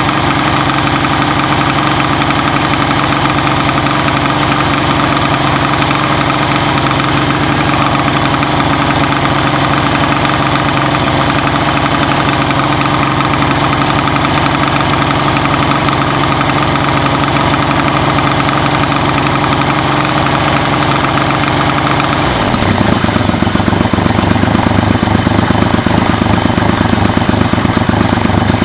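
Yamaha XS750 air-cooled three-cylinder engine idling steadily, running on a freshly made oiled-foam air filter. About three-quarters of the way in the pitch drops and it settles into a lower, somewhat louder idle.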